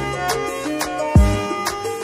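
Background music: sustained melodic tones over a steady beat, with a deep kick drum about every second and a half and sharp hits in between.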